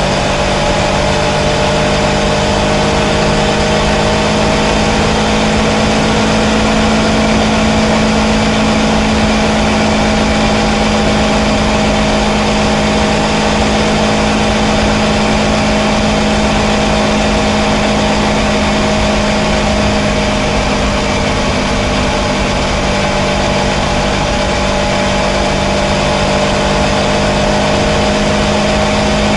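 Kawasaki Versys 650 parallel-twin engine running at a steady cruise, its pitch rising slightly over the first few seconds and then holding. Wind and road rush run under it throughout.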